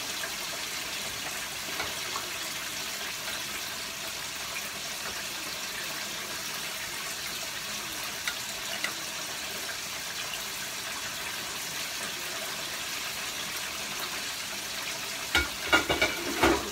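Steady hiss of cabbage and vegetables cooking in a pot on the stove, with a few light clinks of tongs and, near the end, a short burst of louder clatter against the pot.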